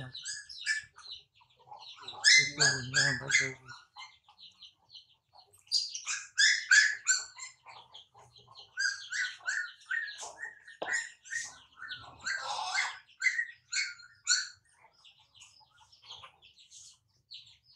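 High-pitched animal chirps or squeaks in quick runs of four to six, coming in several groups with short pauses between. A low hum sounds briefly under the first run.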